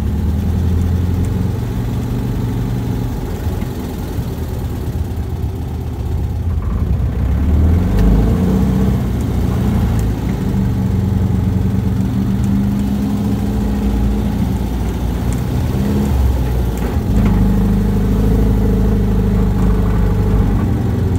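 Dune buggy engine running while the buggy drives over a sandy trail. Its note shifts several times as the throttle changes, getting louder about 8 seconds in and again near 17 seconds.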